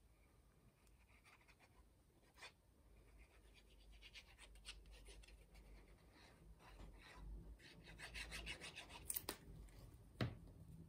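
Faint scratchy rubbing of a liquid-glue bottle's applicator tip worked back and forth over cardstock, with a few soft knocks as the card and bottle are handled, the last near the end being the loudest.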